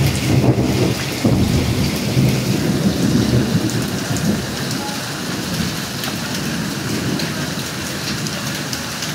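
Heavy rain mixed with small hailstones falling on roofs and pavement, a dense, steady hiss with scattered ticks of impacts. A deep rumble runs under it and eases off after about four seconds.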